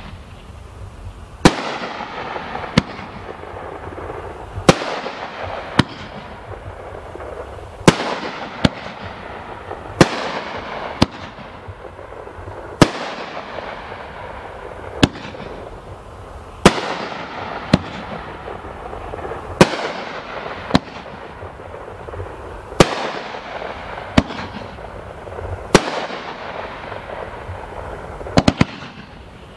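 Consumer fireworks cake firing shot after shot: about twenty sharp bangs, one every one to two seconds, each trailed by a fading sizzle of burning stars.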